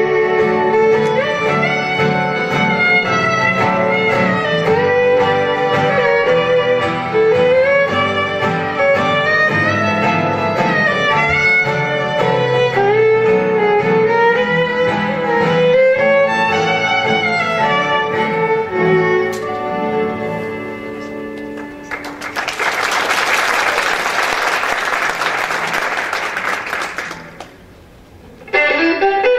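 Solo fiddle playing a lively tune over acoustic guitar accompaniment. The tune stops about two-thirds of the way in and is followed by several seconds of audience applause. Near the end, the fiddle and guitar start up again.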